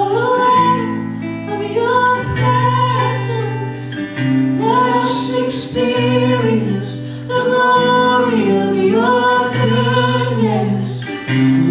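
Live worship song: a man singing held, flowing lines into a microphone over strummed acoustic guitar.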